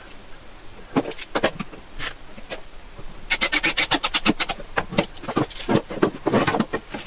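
Pine rails knocked and shifted on a wooden workbench, then a cordless drill driving a pocket-hole screw into the joint, heard as a rapid run of clicks lasting about a second. More knocks follow as the drill is set down and the frame is handled.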